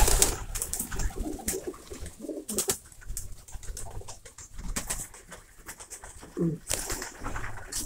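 Domestic pigeons cooing in their loft, with scattered knocks and rustles close to the microphone.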